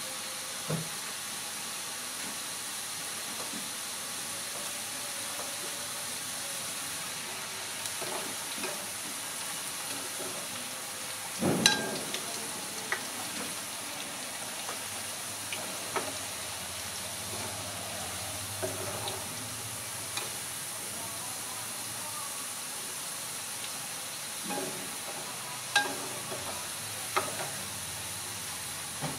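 French fries deep-frying in hot oil, a steady sizzle, with occasional sharp knocks and clinks of a utensil against the pan, the loudest about eleven and a half seconds in.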